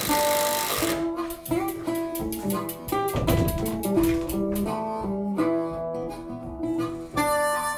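Background music: a plucked and strummed guitar tune with an even beat.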